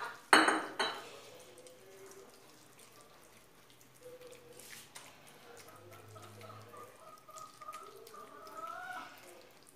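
Spoon stirring a wet mix of olive oil, chopped herbs and spices in a small glass bowl, with a brief louder clatter against the glass near the start, then soft, wet stirring.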